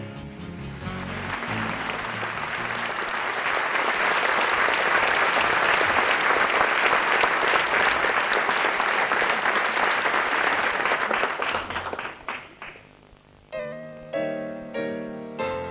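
Concert audience applauding as the band's last notes fade, the applause swelling over the first few seconds and dying away about twelve seconds in. A piano then starts playing evenly repeated notes, opening the next song.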